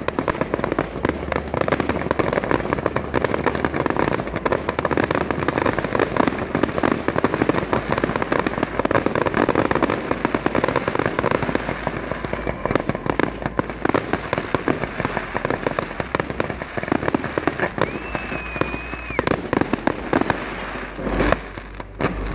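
Fireworks display: a dense, continuous crackling and popping from crackling stars and fountains, with louder bangs among them. A brief high whistling tone comes about eighteen seconds in, and the crackle thins out for a moment near the end.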